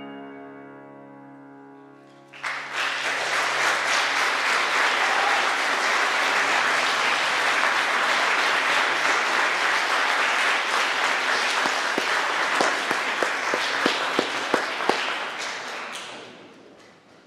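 The final chord of a choir with piano rings out and fades, then audience applause breaks out about two seconds in, with a few sharper single claps standing out later, and dies away near the end.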